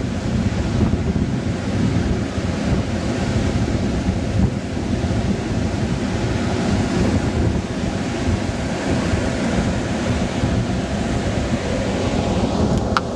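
Wind buffeting the camcorder microphone in loud, rumbling gusts, over the steady wash of ocean surf breaking on the beach. A brief click near the end.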